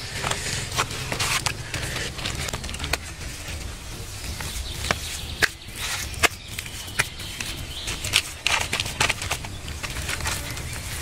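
Hands packing wet mud around a leaf-wrapped fish on palm fronds: irregular pats, crackles and rustles of the leaves, over a low steady rumble.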